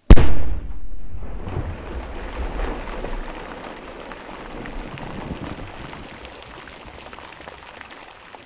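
A large firecracker exploding in a puddle: one very loud, sharp bang, then, after a short lull, a low rumble and a long spattering hiss like rain as water and mud fall back, fading over several seconds.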